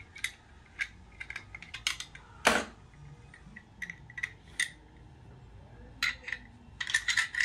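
Short, lightly ringing metal clicks and clinks as a screwdriver and the steel parts of a downhole tool knock against each other and against a steel workbench, with one louder clank about two and a half seconds in.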